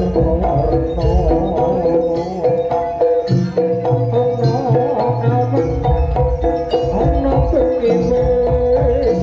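Javanese jaranan music from a gamelan-style ensemble: a wavering, held melody line over hand-drum patterns and a steady percussion beat.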